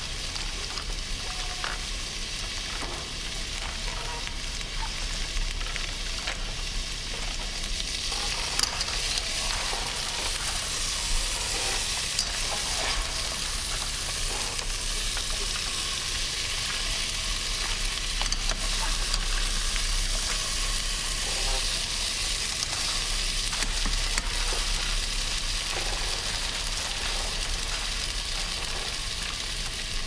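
Food frying in a pan: a steady sizzle with scattered small ticks and pops.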